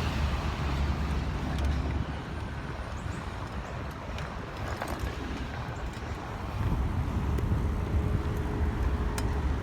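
Low outdoor rumble of traffic mixed with wind buffeting the microphone, somewhat quieter through the middle stretch.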